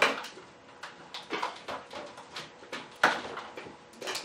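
Handling noises of tools and objects on a workbench: a sharp knock right at the start and another about three seconds in, with lighter clicks and rustles between.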